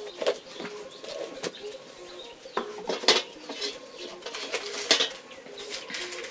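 Clinks and knocks of an enamel bowl, with a spoon against it, as a dry flour, sugar and salt mix is worked by hand, the sharpest knocks about three and five seconds in. Faint, steady, repeated low calls run underneath.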